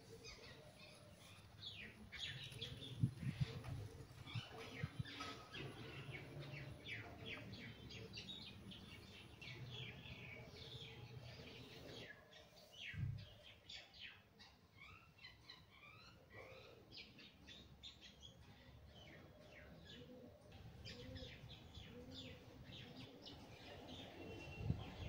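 Birds chirping, many short calls that go on throughout, faint. A few low thumps break in about three seconds in, around thirteen seconds in and near the end.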